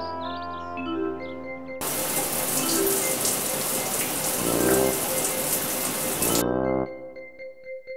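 Shower water spraying and splashing, starting suddenly a little under two seconds in and cutting off about six and a half seconds in, with background music playing before, under and after it.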